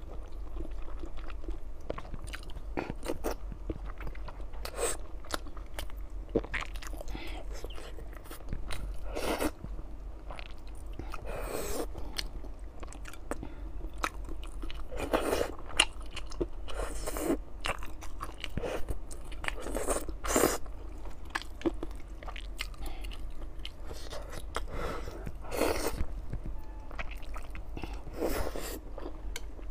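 Close-miked eating of hot-and-sour glass noodles and boiled eggs: slurps, biting and chewing with wet mouth sounds and some crunching, coming in short irregular strokes every second or two.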